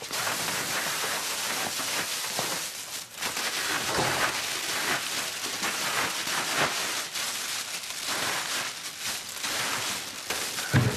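Plastic bags rustling and crinkling as hands rummage through them: a continuous run of irregular crackles.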